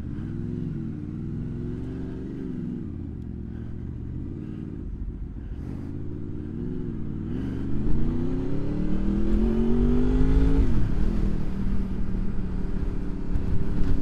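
Honda VFR motorcycle's V4 engine at low speed, its pitch rising and falling as the throttle is worked, then pulling hard with a rising note for about three seconds before dropping sharply at an upshift and settling. From about halfway, a heavy low wind rumble on the helmet microphone joins in as the bike gathers speed.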